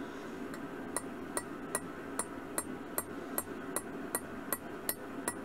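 Light, evenly spaced metallic taps on a steel punch, about two and a half a second, starting about a second in: a design is being dotted into the steel of an axe head.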